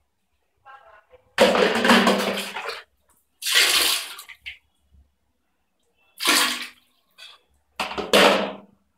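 Toilet flushing: water rushing loudly through the bowl, coming in four surges with short breaks between them.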